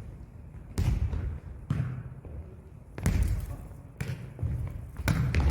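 Jokgu ball being kicked and bouncing on a gymnasium floor: a series of sharp thuds about a second apart, each echoing in the hall.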